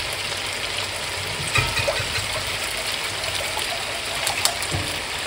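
Water pouring steadily from a glass measuring jug into a stainless steel pot, the stream splashing into the water already in it.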